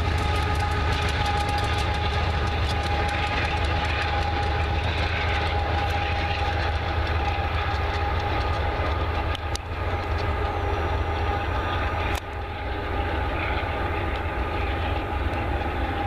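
Union Pacific diesel locomotive and loaded coal hoppers rolling past and away on curved track: a steady low engine rumble and rail noise, with several steady high-pitched ringing tones held over it. The sound turns duller about twelve seconds in as the train draws away.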